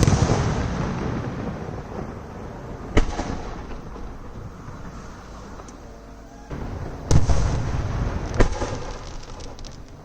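Fireworks shells bursting in a display. A loud bang opens, followed by a long rumbling echo. A sharp bang comes about three seconds in. Two more loud bangs come around seven and eight seconds in, followed by a patter of crackling.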